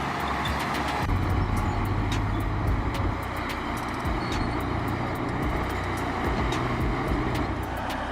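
Heavy earth-moving machinery's engine running steadily with a low rumble, under a scatter of sharp clicks.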